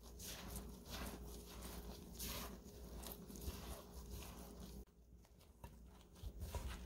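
Gloved hand kneading mashed kabocha squash into dry rice flour in a bowl: faint, soft rustling and squishing strokes a fraction of a second apart, with a brief lull about five seconds in.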